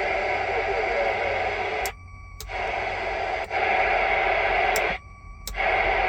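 Static hissing from the speaker of a Uniden PC78LTW CB radio. The static cuts out twice, for about half a second each time, with a click as each gap starts and ends.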